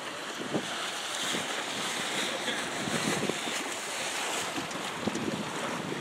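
Wind blowing across the microphone over choppy open water, a steady rushing noise with a few gusty buffets.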